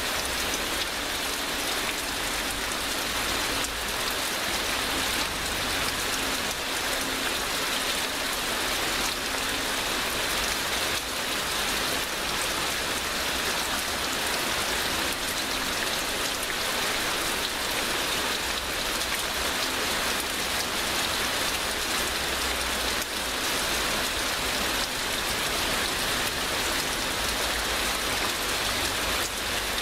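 Heavy rain falling steadily in a downpour, an even hiss of many drops hitting a surface with no letup.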